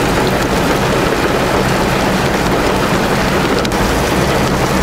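Heavy rain pouring steadily onto a flooded street, a dense continuous hiss of rain on water, with a low engine hum underneath.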